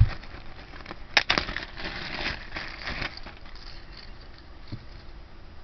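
Small plastic bag crinkling as it is handled and opened, with a soft knock at the start and a sharp click about a second in.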